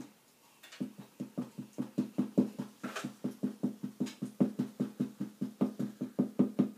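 Rapid, even knocking, about five strokes a second, each with a low hollow ring. It starts about a second in and keeps up steadily.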